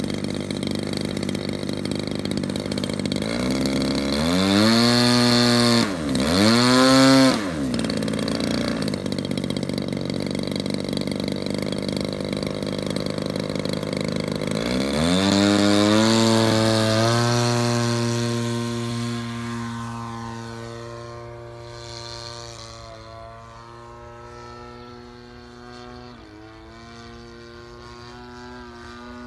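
Extra 360 model aerobatic airplane's engine and propeller idling on the ground, blipped twice to a higher pitch, then throttled up for take-off about halfway through and holding a steady high pitch as it fades while the plane climbs away.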